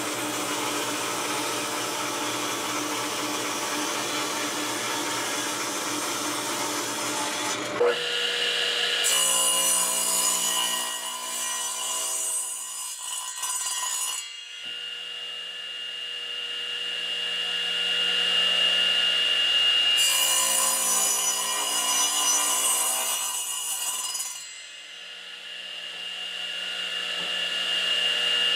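Power saws cutting pine boards: a table saw running and cutting for the first several seconds, then a radial arm saw running with a steady high whine and cutting through the board in two separate passes.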